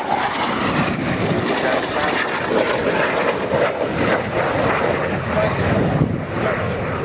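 Jet noise from a Eurofighter Typhoon's twin EJ200 turbofan engines as the fighter flies its display, a loud, steady rushing sound.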